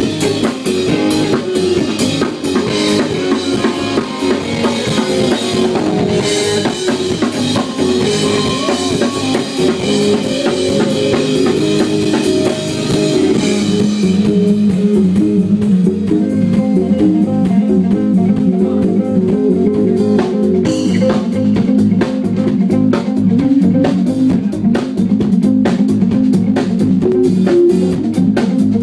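Live band playing loud amplified rock: electric guitar over a drum kit. About halfway through, the bright high end thins out and a repeating low riff comes to the fore.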